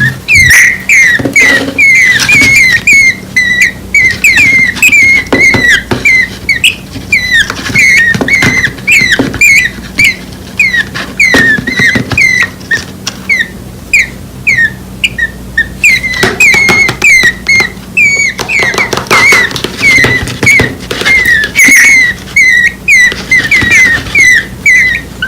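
Two nestling birds, less than a week old, chirping over and over in short high peeps, several a second: the begging calls of hungry chicks calling for their parent.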